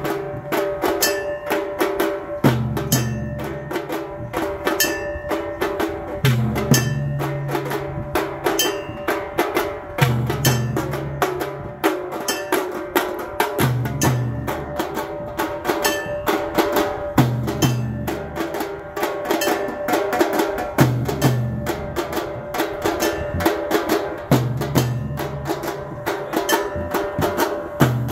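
Aarti music at a Shiva temple: drums and other percussion struck in a fast, even rhythm, with a deep drum pattern coming round about every three and a half seconds under a steady held note.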